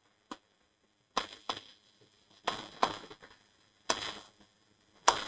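A stylus writing on an interactive smart board screen: a series of short, scratchy taps and strokes, about seven, as words are handwritten on the glass.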